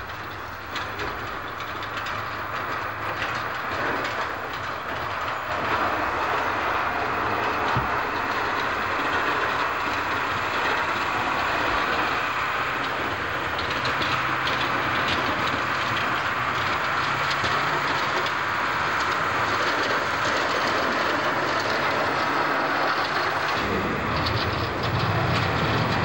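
Snowplow dump truck pushing snow with its front blade: a steady scraping hiss of blade and snow over the truck's running engine, growing louder over the first several seconds. A deeper engine rumble comes in near the end.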